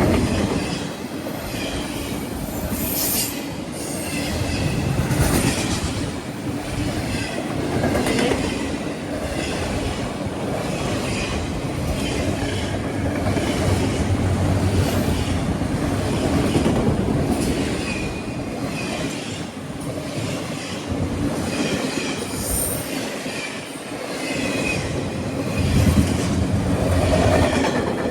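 A train rolling past on CN track, its wheels clicking steadily over the rail joints, with brief high wheel squeals now and then.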